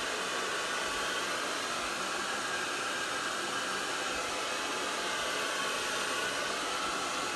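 Hand-held hair dryer running steadily, an even rush of air with a faint motor hum, drying wet hair.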